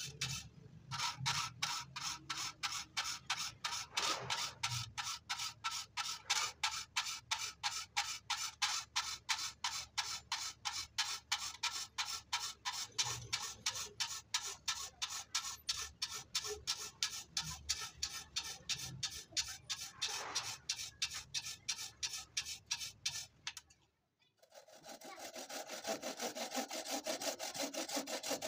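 A file rasping across the teeth of a hand saw clamped in a vise, sharpening it in steady strokes about two or three a second. The filing stops about 24 seconds in, and after a brief pause the sharpened saw starts cutting into wood with quicker, continuous strokes.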